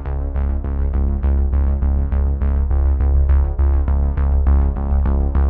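Background electronic music: a quick, even pulse of synthesizer notes, about three or four a second, over a heavy steady bass.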